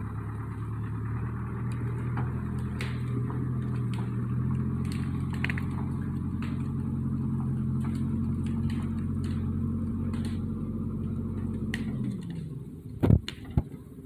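Ford backhoe's diesel engine working at steady throttle while it moves a stump and brush, with scattered cracks and snaps. Near the end the engine drops back to a lower pitch, then two sharp thumps follow.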